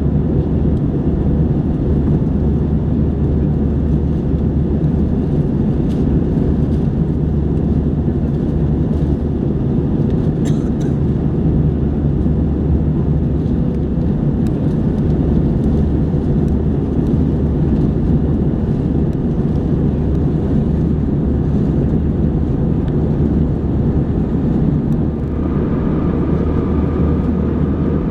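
Airbus A321 cabin noise in flight: a steady, unbroken rumble of engines and airflow heard from inside the passenger cabin. A faint high steady whine joins near the end.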